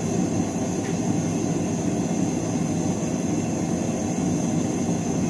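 Gas forge's propane burner running, a steady, even rushing noise.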